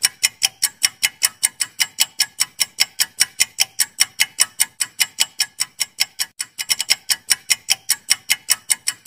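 Ticking-clock sound effect for a countdown timer: rapid, even, crisp ticks, about four to five a second.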